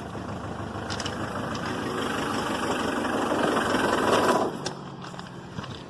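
Ford Transit 2.4 diesel engine catching and running for about four seconds, then stopping abruptly. A hard start: the mechanic finds that none of the four glow plugs is working.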